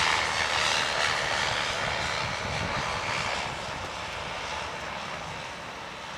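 Cessna 208B Caravan single-engine turboprop that has just passed, its rushing engine and propeller noise fading steadily as it moves away.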